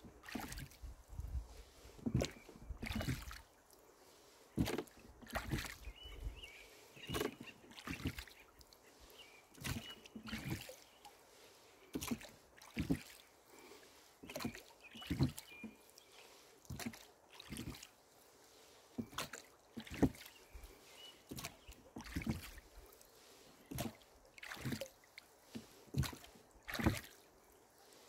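Rowboat being rowed with a steady stroke rhythm: knocks and splashes from the oars, oarlocks and blades, coming in pairs about every two and a half seconds. Wind buffets the microphone for the first few seconds.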